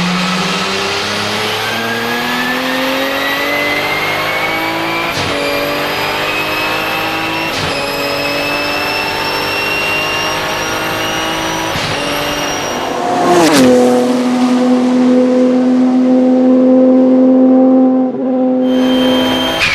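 Porsche 997 GT2 RSR's twin-turbo 3.9-litre flat-six accelerating hard through three gear changes, its pitch climbing in each gear and falling abruptly at each upshift. About thirteen seconds in the pitch drops sharply and the engine holds a steady, louder note for several seconds.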